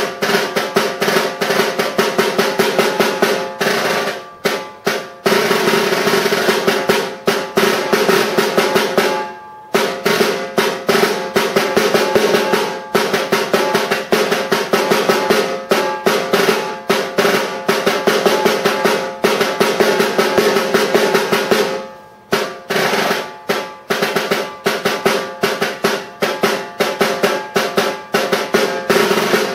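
Concert snare drum played with sticks in a solo: quick accented strokes alternating with sustained rolls, the snares buzzing under the head's ring. It breaks off briefly about four, nine and a half, and twenty-two seconds in.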